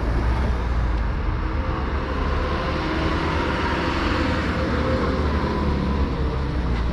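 City street traffic noise, swelling as a vehicle passes by in the middle.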